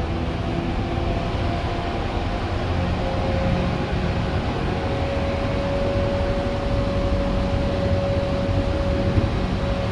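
Tokyu 8500 series electric train running, heard from inside the car: a steady heavy rumble of wheels on rail with a steady motor whine. One sharp click comes near the end.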